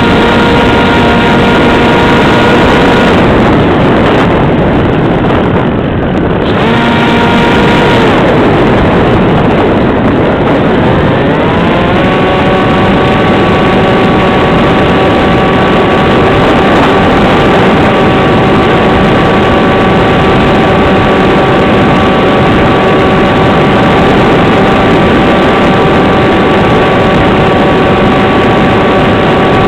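Electric motor and propeller of an AXN Floater Jet RC plane running under a heavy steady hiss. It holds a steady whine, is throttled back about three seconds in, blips briefly, then spools up with a rising pitch around eleven seconds and holds steady again.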